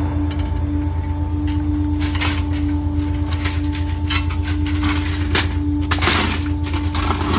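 Rear-loader garbage truck's engine idling with a steady low drone and a constant hum above it, with scattered metal clanks and rattles as a wire litter-bin cage and its bin are handled beside the hopper, busiest about two-thirds of the way in.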